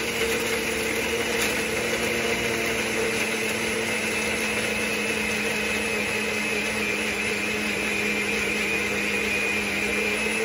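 Personal bullet-style blender running steadily, with an even motor hum and whine, as it blends ice and blue curaçao into a thick slush.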